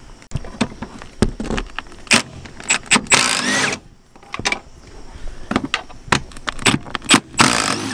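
Milwaukee cordless impact driver hammering on the truck's front-seat Torx bolts in two bursts, one about three seconds in and one near the end. Metallic clinks and clatter of the tool and socket being handled come between them.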